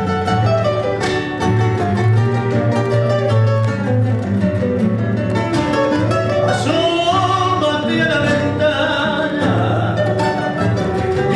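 Two classical guitars playing a song together, plucked and strummed, with a man's singing voice coming in about halfway through.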